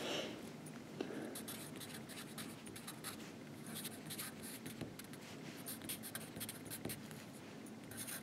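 Faint scratching of handwriting: short, irregular writing strokes.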